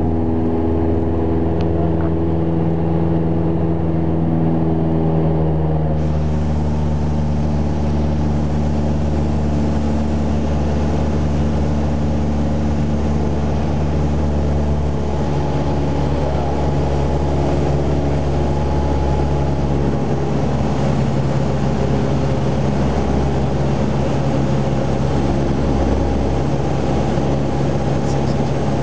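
Piston engine and propeller of a light training airplane droning steadily, heard from inside the cockpit. The engine note drops a little about halfway through.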